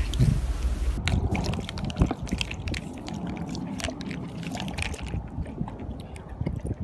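Dog lapping water from a plastic bowl: a quick, irregular run of wet laps and clicks that begins about a second in.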